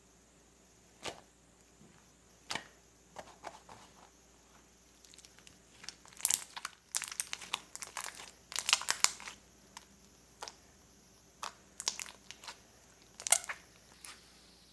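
Intermittent crinkling and crackling, like packaging being handled, with scattered sharp clicks; the crackling comes thickest in a cluster past the middle.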